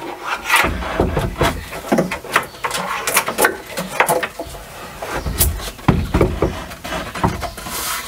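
A kitchen tabletop being fitted into a camper van build: a series of irregular knocks and bumps as the piece is handled and set in place.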